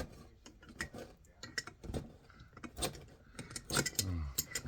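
Irregular metallic clicks and clinks of hand tools and loose parts being handled against a metal receptacle, with a short vocal grunt about four seconds in.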